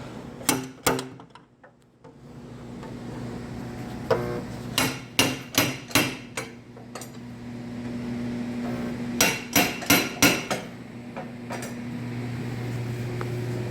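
Hammer blows on car body sheet metal during quarter-panel straightening: two quick hits, then a run of about six, then four more, each sharp and ringing. A steady low machine hum runs underneath and grows louder near the end.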